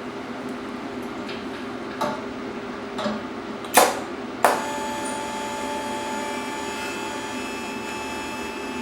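Four sharp metal knocks, like tool or hammer taps on a bracket being fitted, the loudest a little under four seconds in, over a steady machine hum. A higher steady whine starts right after the last knock and keeps going.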